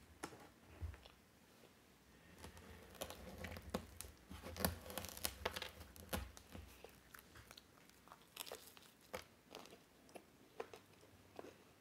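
Flaky Nutella puff pastry twist crackling and tearing as it is pulled apart by hand, densest a few seconds in, then scattered crackles with chewing.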